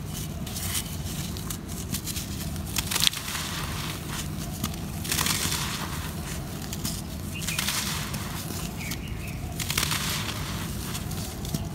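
Blocks of dry red dirt crumbling in the hands, with loose earth sifting and pouring through the fingers: gritty, crackly crunching that swells and fades every second or two, over a steady low hum.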